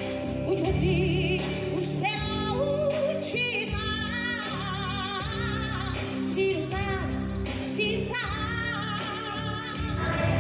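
Live pop-rock band playing, with a woman singing long, wavering notes over a steady drumbeat.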